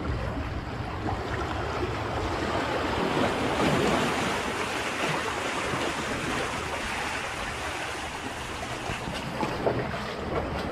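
Seawater surging and washing through a narrow rock gully over pebbles, with wind buffeting the microphone; the wash swells about three to four seconds in.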